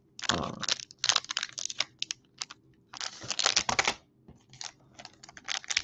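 Foil wrapper of a Pokémon booster pack crinkling and crackling in irregular bursts with short pauses, as hands struggle to tear it open.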